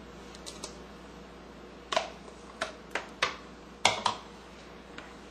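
A spoon knocking and tapping against the pot as it is worked through a thick, creamy filling: several short, sharp clacks at uneven intervals, most of them in the middle of the stretch.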